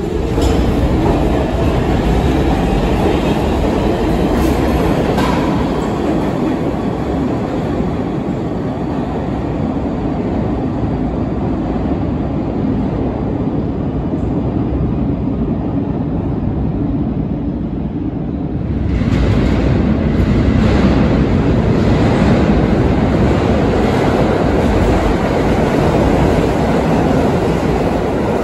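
A New York City Subway train running on the tracks: a loud, steady rumble and clatter of wheels on rail, with a rising whine at the very start. About two-thirds of the way through, the sound cuts abruptly to another subway train running by.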